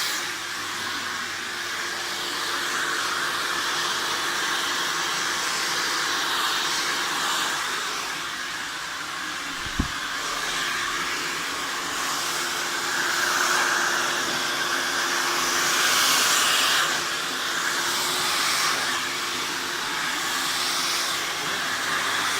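Hand-held hair dryer blowing steadily, its rushing air swelling and fading as it is moved over the hair, with a faint steady motor whine under it. A single short thump comes near the middle.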